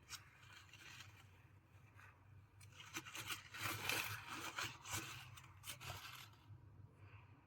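Faint scraping and rustling with scattered sharp clicks, busiest in the middle and fading out near the end.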